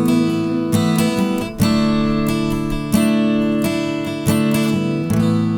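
Instrumental passage of a gospel worship song: strummed acoustic guitar chords, a new chord struck about every second or so.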